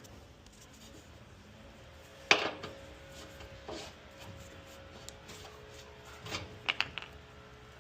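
Dryer parts and tools being handled during the repair: one sharp knock about two seconds in, a few softer taps, and a quick cluster of clicks near the end, over a faint steady hum.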